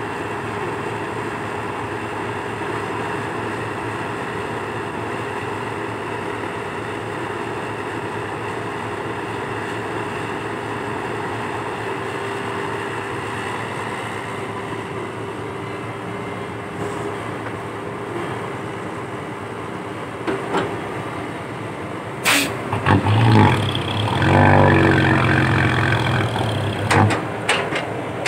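Komatsu PC120-5 excavator's diesel engine running steadily with a faint whine as the boom and bucket work. About 22 seconds in comes a sharp knock with some clanking, and the engine runs much louder and heavier under load for a few seconds before easing off.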